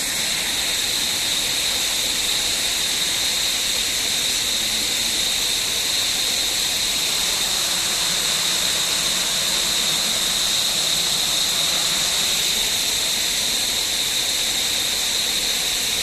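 Steady high-pitched shrill of jungle insects over a constant hiss, unchanging throughout.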